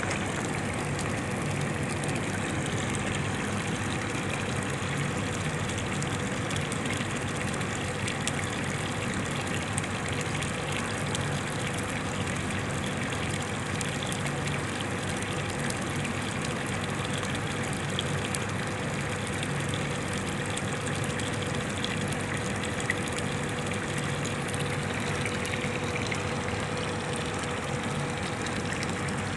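Water running steadily into a small fish pond from a pipe, a constant rush with a steady hum beneath it.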